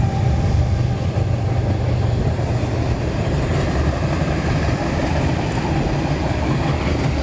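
Freight train cars (covered hoppers, then tank cars) rolling past on the rails, a steady low rumble of steel wheels on track.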